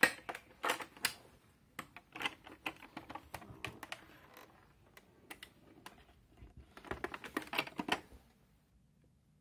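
Hands handling the plastic cabinet, carry handle and vented back cover of a Philips T12R630 portable black-and-white TV: bursts of sharp plastic clicks and knocks, the loudest right at the start, stopping about eight seconds in.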